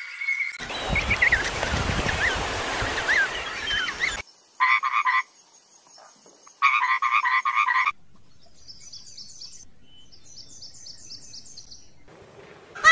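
Frogs croaking: a dense chorus of many short calls over the first few seconds, then two bouts of rapid pulsed croaks near the middle.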